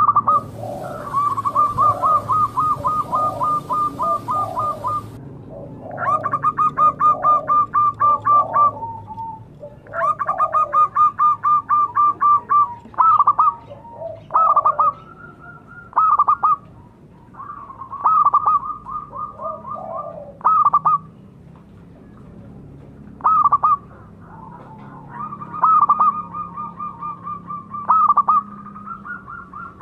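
Zebra dove (perkutut) cooing: long trains of rapid, staccato high notes, each phrase one to four seconds long and repeated many times, with lower, slower coos among them in the first third and shorter phrases later on.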